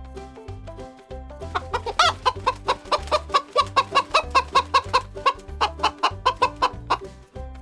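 Chicken clucking in a fast run of short, loud calls, about five a second, starting about a second and a half in and stopping near the end, over steady background music.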